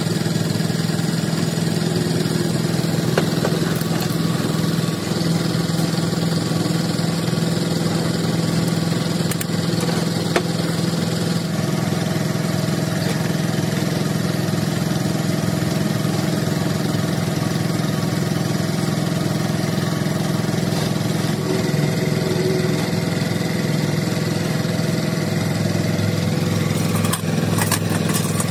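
A small engine running steadily at a constant pitch, with a few faint clicks on top.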